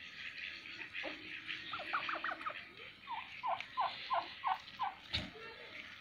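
Domestic turkey toms gobbling twice, each gobble a fast rattling run of notes, the second lower and longer than the first. A brief thump comes just after the second gobble.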